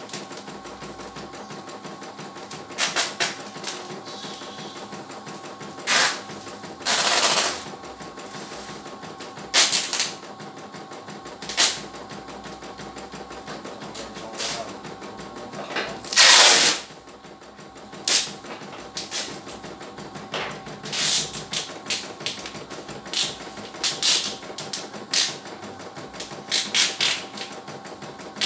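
CNY E900 computerized embroidery machine stitching: a rapid, even needle rhythm over a steady motor hum, with louder noisy bursts at irregular moments, the longest about seven and sixteen seconds in.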